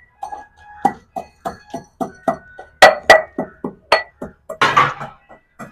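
Pestle pounding whole black peppercorns in a metal mortar, about four strikes a second. Each knock ends in a short metallic ring.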